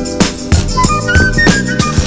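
Background music with a steady drum beat and a melody line over it.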